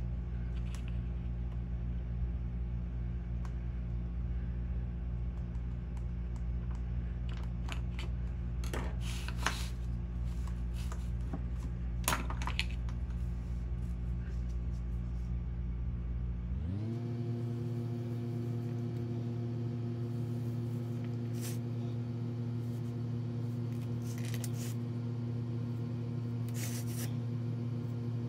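A small screwdriver scraping and ticking against packed casting sand and the steel frame of a sand-casting flask, in scattered short scrapes and clicks. Under them runs a steady low hum of several held tones, which glides up in pitch to a new set of tones about two-thirds of the way through.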